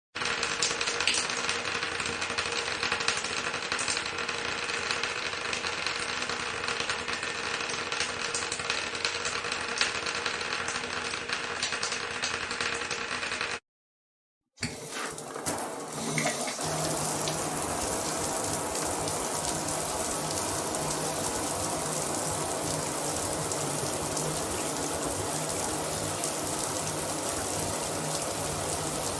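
Bathroom shower running: a steady spray of water, in two takes split by about a second of silence near the middle. The second take is uneven for its first couple of seconds, then steady.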